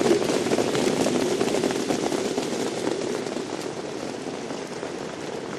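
A field of trotters in harness passing: a dense clatter of hooves and sulky wheels on the track, dying down over the last few seconds.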